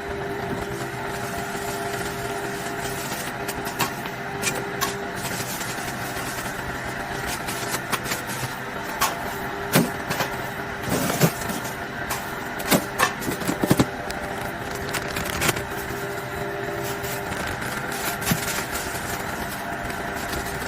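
A steady motor hum, with a run of sharp clicks and knocks about halfway through.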